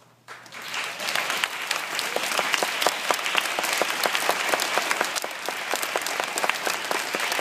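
Audience applauding: many hands clapping at once, starting suddenly just after the start, swelling over the first second, then holding steady.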